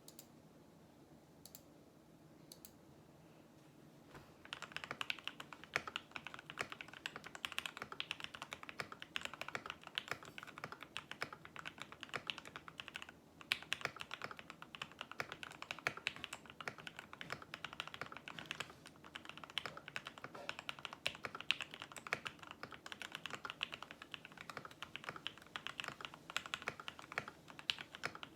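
Fast, continuous typing on a 60% mechanical keyboard with lubed Gateron Yellow linear switches, PE foam and case and plate foam under the plate, and ABS keycaps. The typing starts about four seconds in and pauses briefly once about halfway through.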